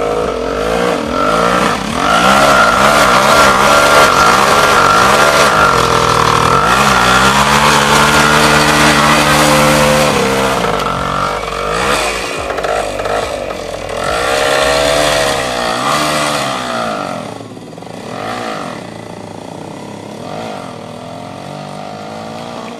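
Voskhod motorcycle's two-stroke single-cylinder engine running and being revved, its pitch rising and falling again and again; loudest in the first half, easing off after about sixteen seconds.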